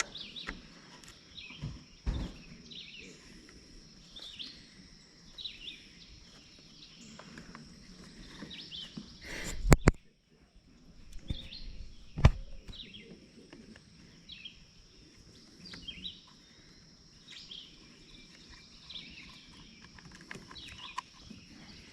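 Birds chirping in the background, with a few sharp clicks and knocks from hand work on a string trimmer being taken apart; two loud knocks come about ten and twelve seconds in.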